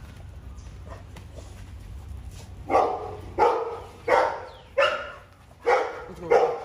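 A pit bull barking six times in a steady run, about one bark every 0.7 seconds, starting a little before halfway through.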